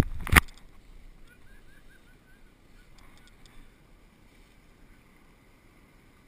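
A loud burst right at the start, then quiet outdoor background with a brief run of about six quick bird chirps about a second in.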